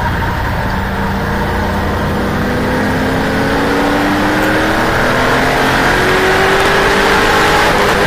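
Onboard sound of a racing saloon car's engine under load, its pitch climbing slowly and steadily through one gear, over wind and road noise.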